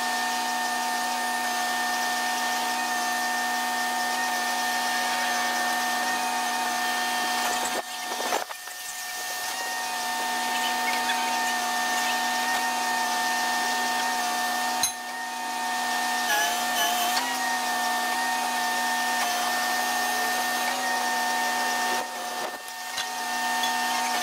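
Truck-mounted crane's hydraulic pump running with a steady whine. It dips briefly three times and wavers in pitch for a moment about two thirds of the way through.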